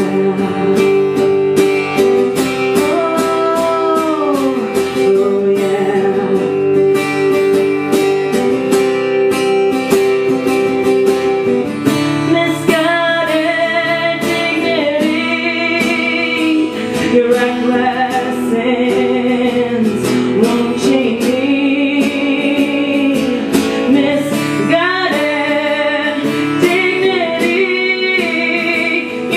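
A live song: a strummed acoustic guitar with a voice singing a wordless, sliding melody over it.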